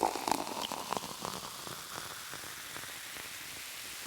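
Steady even hiss, with a few light clicks in the first second or so.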